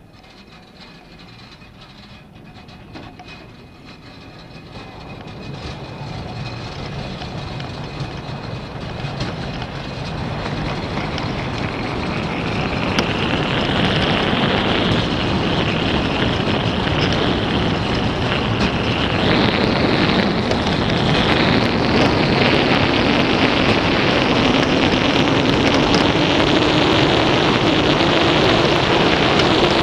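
Wheeled summer bobsled rolling down the track: a rumbling rush that builds steadily louder over the first dozen seconds as the sled gathers speed, then holds loud.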